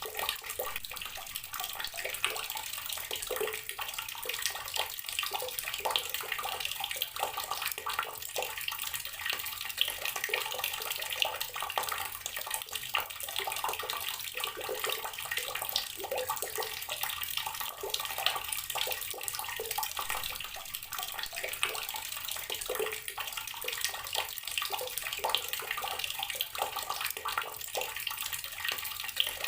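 Water from a tap pouring steadily into a container of water, a constant splashing full of small droplet splashes.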